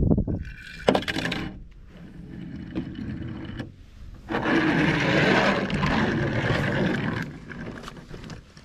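Die-cast Sally Carrera toy car pushed by hand, its wheels rolling and scraping across a hard tabletop for about three seconds near the middle. A short knock comes about a second in.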